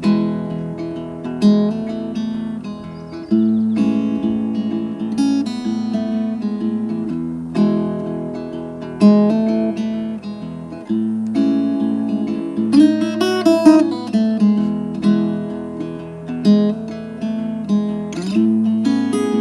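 Acoustic guitar playing an instrumental piece: plucked notes over low bass notes, changing every second or two, with a quick run of notes about two-thirds of the way through.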